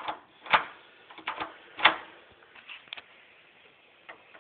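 A brand-new classroom-function door lock and its door being handled: about half a dozen irregular sharp clicks and knocks from the knob, latch and door, the loudest a little under two seconds in.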